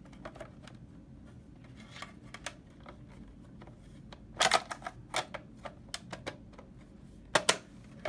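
Plastic back cover and housing of a wireless alarm control panel handled and fitted together: scattered clicks and clacks, with the sharpest clusters about four and a half seconds in and again near the end.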